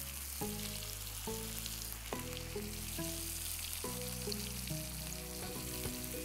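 Seer fish (vanjaram) steaks frying in oil on a flat iron dosa griddle: a steady hissing sizzle. Soft background music with slowly changing notes plays underneath.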